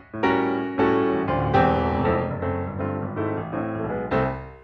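Piano music: a run of struck chords and notes that fades out near the end.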